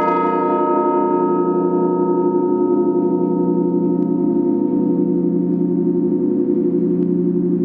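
Large Russian Orthodox church bell ringing on after a stroke, its deep hum holding steady with an even pulsing wobble and no new stroke.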